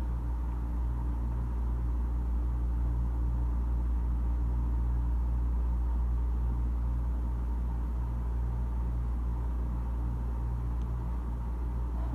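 A steady low background hum, a constant drone with faint higher tones above it and no distinct events.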